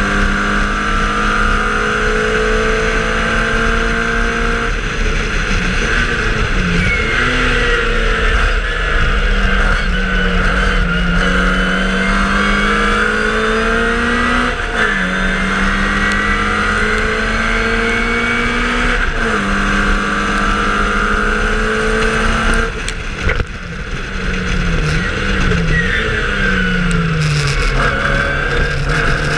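1963 MG Midget Mk1 race car's A-series four-cylinder engine heard from on board under hard acceleration, its pitch climbing through the gears with several sharp drops at the upshifts. Near the end it lifts off and drops lower for a corner, then climbs again, over steady wind and road noise.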